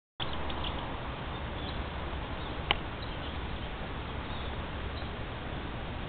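Steady outdoor background noise, heaviest in the low end, with a few faint short high chirps and one sharp click a little under three seconds in.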